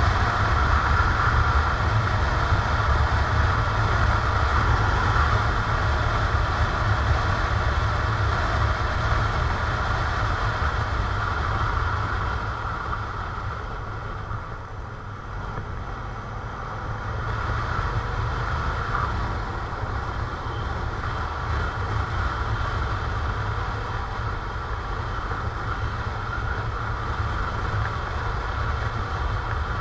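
Motorcycle engine running with wind and road noise while riding. The noise drops somewhat about halfway through, then rises again.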